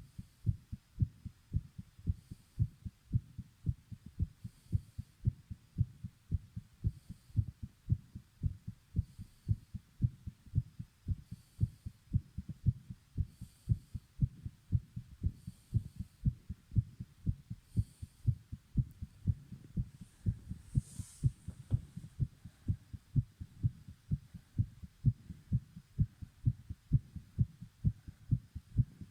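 A fast, pounding heartbeat: a steady, rapid run of low thumps that quickens further near the end.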